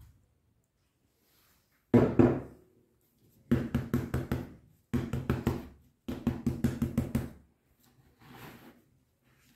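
A single knock about two seconds in, then three runs of quick knocks, about six a second: a filled paper cup of ice-cream mixture tapped repeatedly on the table to settle the cream.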